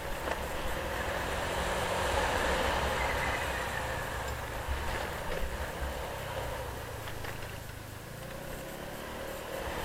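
Steady rumble and road and wind noise of a vehicle on the move, swelling slightly a couple of seconds in, with a few small knocks around the middle.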